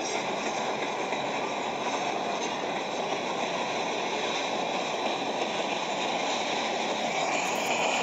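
Freight train's hopper cars rolling past a railroad crossing: a steady rumble and rush of wheel noise on the rails, getting slightly louder near the end. It sounds thin, with little bass, as if played back through a small speaker.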